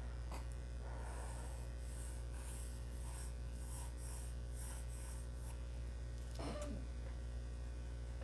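Graphite pencil sketching on drawing paper: soft, faint scratching strokes at about two to three a second, over a steady low hum. A short sound falling in pitch comes near the end.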